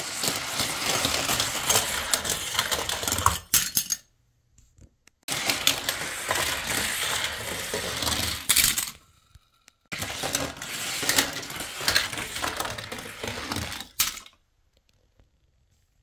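Many small die-cast Hot Wheels toy cars clattering and clinking against each other and against hard plastic, in three bursts of about four seconds each.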